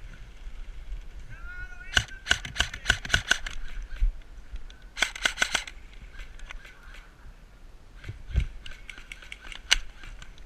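Airsoft guns firing: a string of single shots about two seconds in, a short fast burst around five seconds, then scattered single shots.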